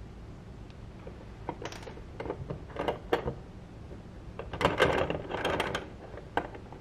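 Small clicks and light rustling from handling an emptied capsule shell and a small metal measuring spoon while turmeric powder is pressed into the spoon. The clicks are scattered at first, then come in a busier cluster a little past the middle.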